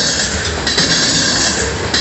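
Freight train of covered hopper cars rolling past up close: steel wheels running on the rails with a low rumble and a steady high-pitched wheel squeal.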